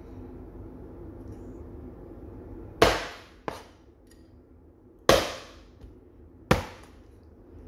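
Cleaver chopping through crisp fried pork belly onto a plastic cutting board: five sharp chops at uneven intervals, starting about three seconds in, three of them loud. Before the first chop a faint steady hum is heard.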